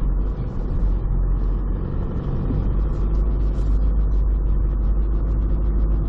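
Vehicle engine running and tyres rolling as it drives along sand tracks, a steady low rumble.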